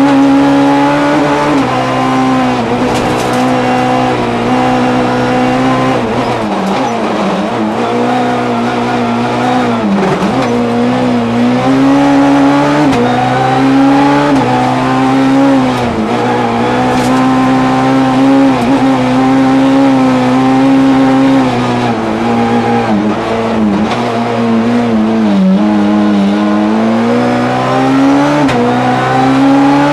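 Peugeot 206 S1600 rally car's 1.6-litre four-cylinder engine running at full race pace, heard from inside the cabin. Its pitch climbs under acceleration and drops sharply several times as the car brakes and shifts down through the gears for corners.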